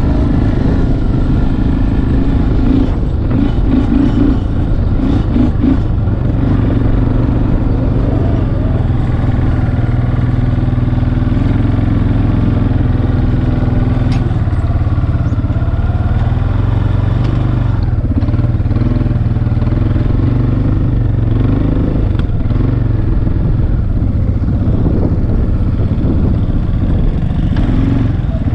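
ATV engine running under way, loud and continuous, its pitch rising and falling as the throttle changes.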